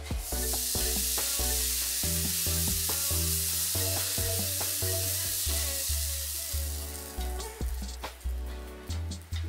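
Roti jala batter sizzling in hot butter as it is drizzled from a squeeze bottle into a small frying pan over low heat. The sizzle fades away about seven seconds in, with background music throughout.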